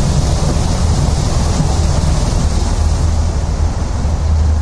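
Heavy rain beating on a vehicle's roof and windscreen, heard from inside as a loud, steady hiss over a steady low rumble of the vehicle.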